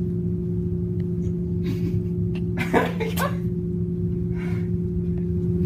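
A steady low hum, with a few short breathy noises from a person about two, three and four and a half seconds in.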